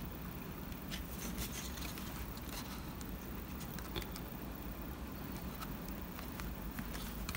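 Scattered faint ticks and scratches of fingers handling a plasticard door as it is pressed into a card model building, over a low steady hum.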